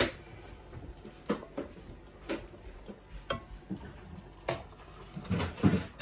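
A utensil knocking and scraping on a frying pan as sticky caramelised onions are scraped out into a bowl: a sharp knock at the start, then five lighter clinks about a second apart, and a few low bumps near the end.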